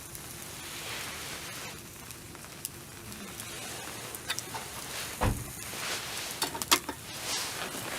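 Wood campfire crackling, a steady hiss with scattered sharp pops, and one dull thump about five seconds in.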